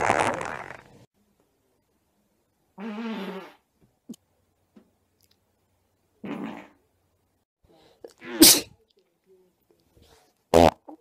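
A series of separate farts from men, five in all with silence between them. The first is loud and lasts about a second, the next two are short and buzzing, and the last two are sharp and very loud.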